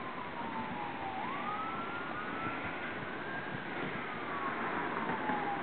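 Emergency vehicle siren wailing, its pitch sliding slowly down, back up about a second in, and down again near the end, over a steady background noise.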